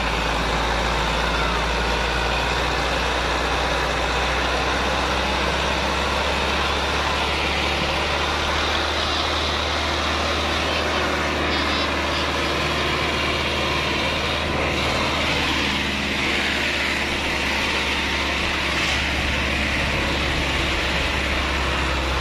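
Bull Power 585 tractor's 85 hp diesel engine running steadily, with voices murmuring faintly underneath.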